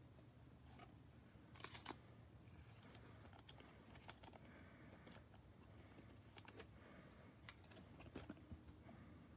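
Near silence with a few faint clicks and taps of trading cards being handled and set down on a table, the loudest cluster about two seconds in.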